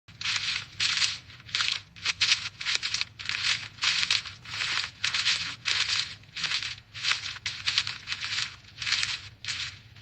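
Footsteps crunching through dry fallen leaves at a steady walking pace of about two steps a second.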